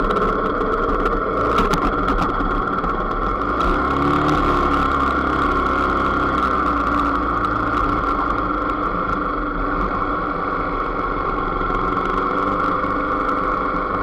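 Motorcycle engine running steadily at low speed, with small rises in pitch about four seconds in and again near the end.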